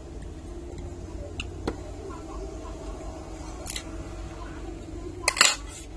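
Small sharp clicks and taps of tweezers and a phone's circuit board being handled during disassembly, with a short, louder clatter of several clicks about five seconds in.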